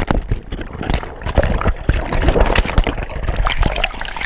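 Churning waterfall water heard through a submerged action camera: muffled bubbling and gurgling with many irregular knocks and splashes.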